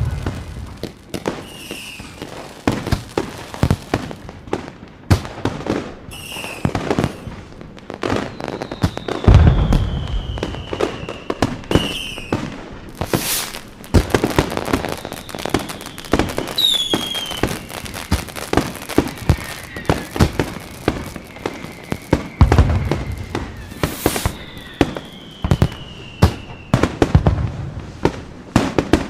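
Fireworks display: a dense run of sharp cracks and bangs with several deep booms, and a few whistling fireworks whose whistles fall slowly in pitch.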